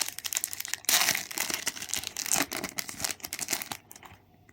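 A foil trading-card pack wrapper being torn open and crinkled: a dense run of crackling that starts strongly about a second in and dies away near the end.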